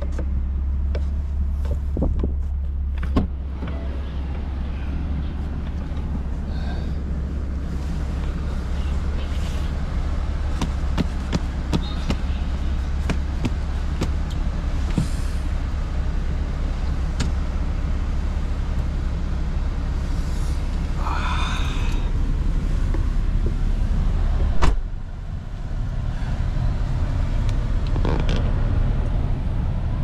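A motor vehicle engine running with a steady low rumble, with scattered light clicks. About 25 seconds in there is a single loud thump, after which the rumble dips briefly and comes back changed.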